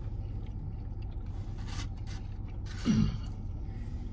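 Steady low hum of the car idling. Over it, a brief rustle, and about three seconds in a short, loud, breathy burst from one of the people, falling in pitch.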